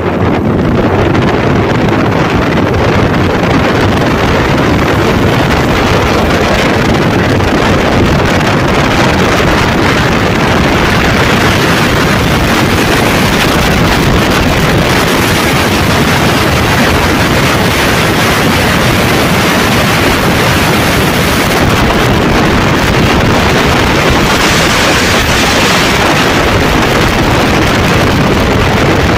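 Yamaha Lander 250 motorcycle ridden at steady road speed: loud wind rushing over the microphone, with the single-cylinder engine's drone underneath.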